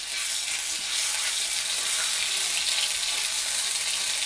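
Curry leaves and crushed ginger-garlic sizzling in hot sesame oil in a kadai: a steady frying hiss that swells just after the start.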